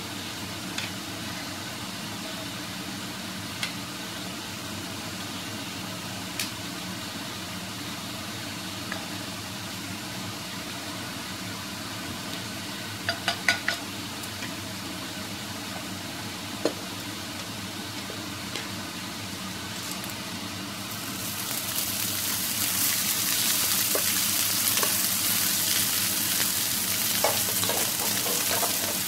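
Oil heating in a non-stick frying pan with a faint sizzle and a few sharp clicks of a utensil against the pan, a short cluster of them about halfway through. About two-thirds of the way in the sizzle grows much louder and stays so as cooked white rice goes into the hot oil.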